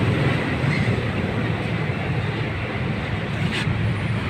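Kawasaki Barako 175 single-cylinder four-stroke motorcycle engine running steadily with a rapid, even firing pulse.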